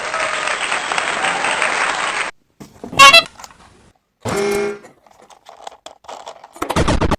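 A string of edited sound effects: about two seconds of rushing noise, then short horn toots with scattered clicks, and a loud burst near the end.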